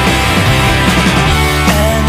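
Background rock music with distorted guitars and drums.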